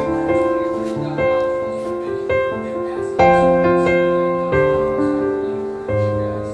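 Background instrumental music on piano: chords struck every half second to a second, each ringing and fading before the next.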